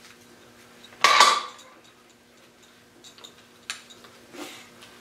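A single sharp metal clank with a short ring about a second in, then several lighter metal clicks and taps, over a faint steady hum: steel parts of a hydraulic cylinder and its hoist rigging knocking together as it is lowered.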